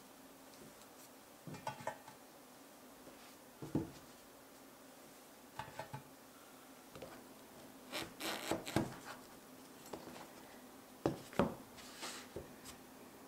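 Scattered light knocks and rubbing from kitchen handling: paper rustled against a white container as it is lined, then a knife cutting and shifting pieces of a white rice-cake slab on a wooden cutting board, with a busier cluster of knocks about two-thirds of the way in. A faint steady hum underneath.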